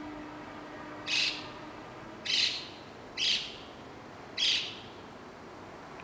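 White-cheeked starling giving four short, harsh, rasping calls about a second apart.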